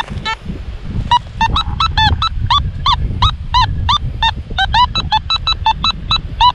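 Metal detector sounding a rapid string of short target beeps, about four or five a second, many bending up and down in pitch, as the coil is swept back and forth over a target. The target reads 54 and the detectorist calls it aluminium. Wind rumbles on the microphone underneath.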